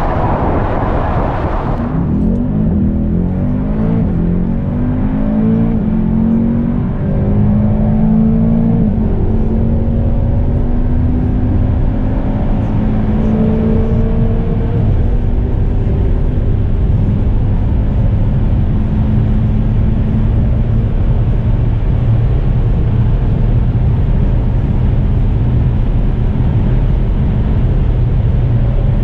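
About two seconds of wind rush, then the tuned Mercedes-AMG E 63 S wagon's twin-turbo V8 heard from inside the cabin. It pulls hard through the upper gears, its pitch climbing in steps with each shift. It then settles into a steady drone at close to its top speed of about 330 km/h.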